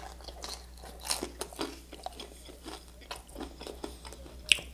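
Biting into and chewing thin, crisply toasted buttered rye bread topped with cheesy tomato pasta: a run of small, irregular crunches. A single sharp click stands out near the end.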